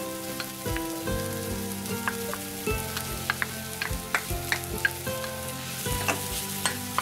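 Mixed vegetables sizzling in a metal pan as boiled potato is scraped off a bowl with a wooden spatula and stirred in. The spatula knocks and scrapes against the pan again and again.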